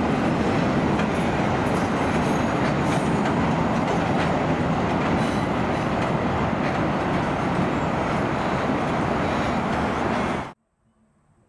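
Train rolling past: steady rumble of wheels on the rails with occasional clicks. The sound cuts off suddenly about ten seconds in.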